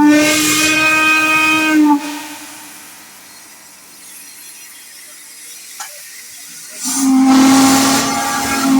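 A deep steam whistle sounds a steady low blast that cuts off about two seconds in, leaving a fading hiss of escaping steam or air. After a few quieter seconds a deep whistle, slightly lower in pitch, starts blowing again near the end.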